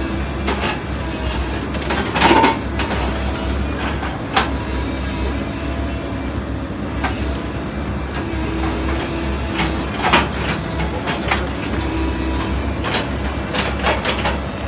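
Excavator's diesel engine running steadily while it drags a wrecked truck aside, with scattered metallic clanks and scrapes, the loudest about two seconds in and a quick cluster near the end.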